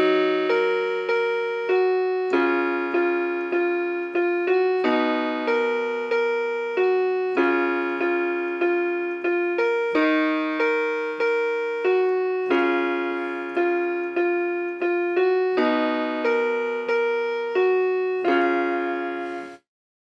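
Rockjam RJ361 budget electronic keyboard played on its default piano tone: a repeating broken-chord figure of about three notes a second, shifting to a new chord every couple of seconds, that stops just before the end.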